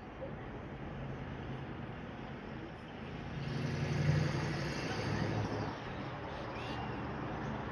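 A road vehicle passing by, swelling to its loudest about four seconds in and then fading, over steady outdoor background noise.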